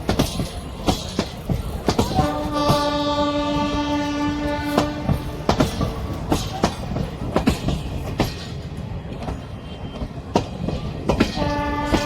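Electric locomotive horn sounding a long blast about two seconds in, lasting about three seconds, and starting again near the end, over a steady clatter of coach wheels clicking over rail joints as the express pulls out.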